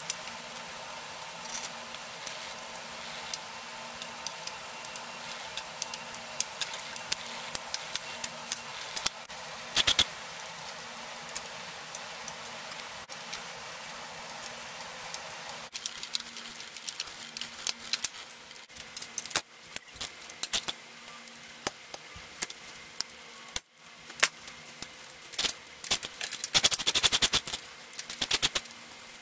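Small metal clicks and clinks of a hex key and bicycle derailleur and brake parts being handled and unbolted. There is a dense run of rattling clicks near the end, over a faint steady hum.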